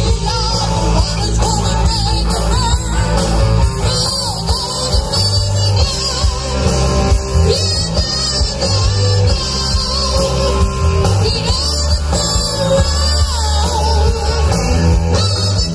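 Live rock band playing: electric guitars and a drum kit over a heavy low end, with singing on top.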